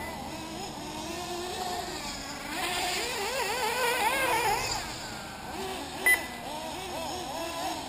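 Several 1/8-scale nitro RC buggy engines running, their high-pitched whine rising and falling as they rev around the track, loudest around three to five seconds in. A short, loud beep comes about six seconds in.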